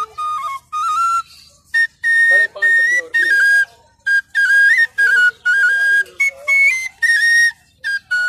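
A small vertical flute played by mouth: a high, clear melody of held notes stepping up and down, in short phrases separated by brief breaths.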